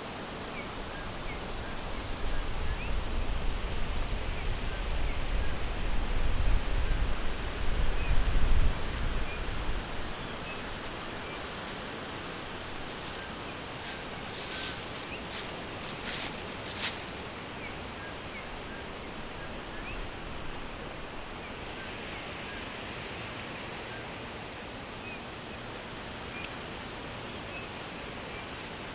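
Forest ambience: a steady hiss with faint, scattered bird chirps. A low rumble runs through the first third, and a few brief rustles come around the middle.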